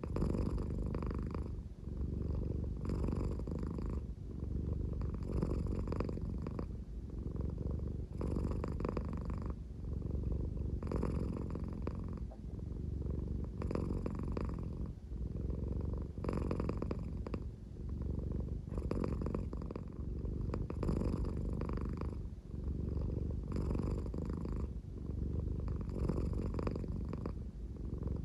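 American Shorthair cat purring at a slow pace, a snore-like rumble that swells and eases with each breath, about one breath every two seconds.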